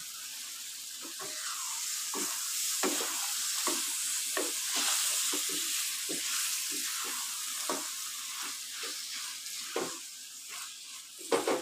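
Soaked whole green moong beans sizzling in hot oil and tomato-onion masala in a pan, while a wooden spatula stirs them with irregular scrapes and knocks against the pan. The sizzle eases a little near the end.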